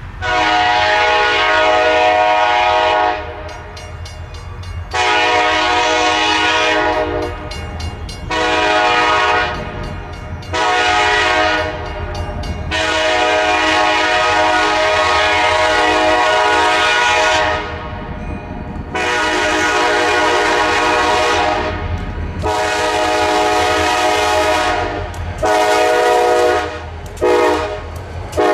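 Freight train locomotive horn sounding a long series of long and short multi-tone chord blasts, with the low rumble of the train underneath.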